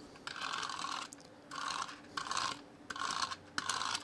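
Midori eraser-shavings desktop cleaner rolled back and forth across a tabletop in about six short strokes, sweeping up balsa wood sawdust, each stroke a brief rasp.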